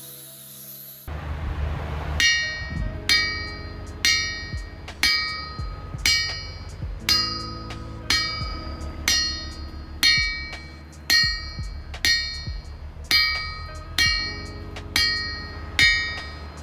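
Hammer striking the air-hardened A2 tool-steel face of a homemade anvil about once a second. Each blow gives a bright, bell-like ring, as the hardened face is tested for hardness and rebound.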